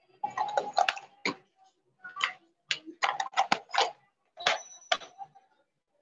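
A scattered series of sharp clicks and taps from drawing supplies, pens and colored pencils, being handled on a desk, heard through a video call, each one cut off short into silence.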